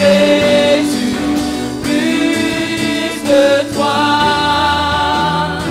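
Gospel worship music: voices singing a slow line over long, sustained accompanying chords.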